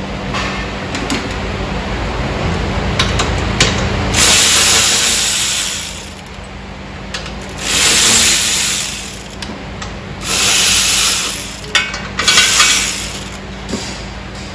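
Ratchet wrench turning bolts in four bursts of one to two seconds each, with sharp clicks and knocks of tools on metal between them.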